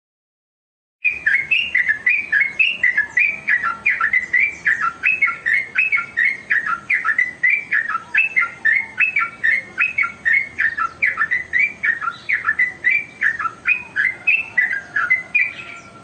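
Caged yellow-vented bulbul (trucuk) singing vigorously. A fast, unbroken run of chattering, bubbly notes repeats several times a second, starting about a second in.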